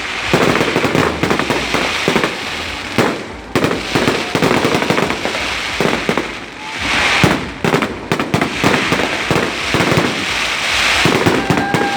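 Fireworks going off in rapid volleys of cracks and bangs over continuous crackling, with brief lulls between barrages.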